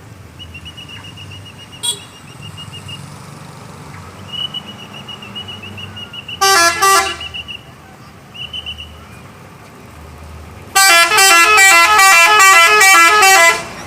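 A bus's multi-tone 'telolet' musical horn: a short burst of stepping notes about six and a half seconds in, then a longer tune of stepped notes for nearly three seconds near the end.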